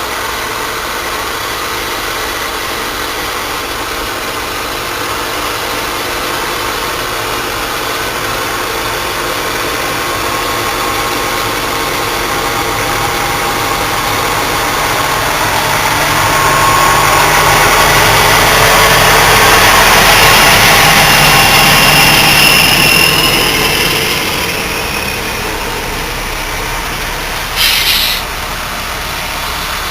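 A motor vehicle engine running steadily. It grows louder for several seconds around the middle, with a faint whine at its peak, then drops back. A short knock comes near the end.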